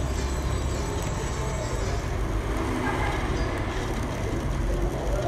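Small electric drive motors and plastic gearboxes of a JBS TR10025 1:18 RC rock-crawler toy car whirring steadily, its wheels spinning freely in the air with no load.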